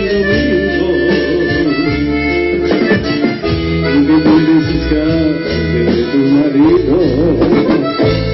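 Instrumental music led by an accordion, its melody weaving over a steady bass line.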